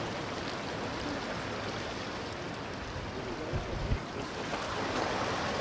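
Steady wash of sea surf with wind, and short gusts buffeting the microphone about three and a half seconds in.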